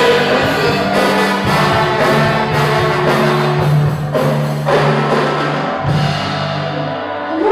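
Live band music led by brass horns, playing held notes over drum strokes; the cymbal and high end die away near the end.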